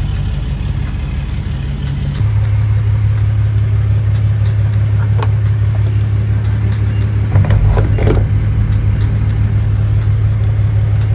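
Steady low mechanical hum that steps up a little about two seconds in, with a few clicks and knocks as the diesel fuel nozzle is handled near the middle.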